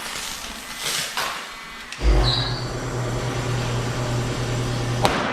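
DeWalt heat gun switching on about two seconds in with a thump, then its fan and heater running steadily with a low hum and airy rush. A sharp click near the end.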